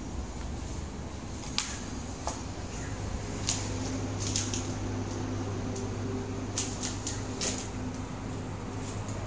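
Footsteps scuffing on a gritty, debris-strewn concrete floor, with scattered sharp clicks, over a steady low hum.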